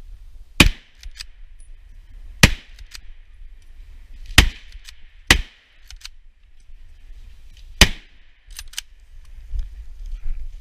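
Five rifle shots fired at close range from a scoped hunting rifle, irregularly spaced over about seven seconds, with fainter clicks after several of them.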